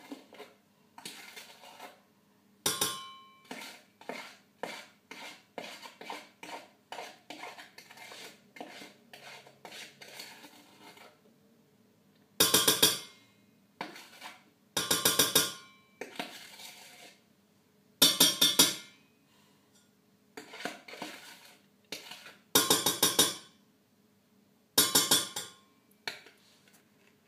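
A metal spoon scraping thick egg-yolk-and-sugar mixture out of a plastic bowl into a pot. A run of quick light scrapes and taps is followed by about six louder, longer scrapes every two to three seconds.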